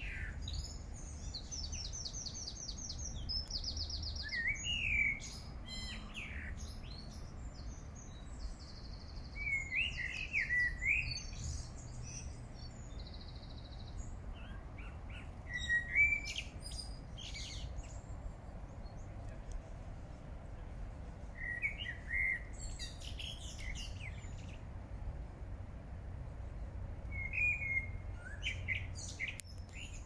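Songbirds singing: a warbled, fluty phrase comes back every few seconds, and another bird gives fast, high trills. A low, steady rumble lies underneath.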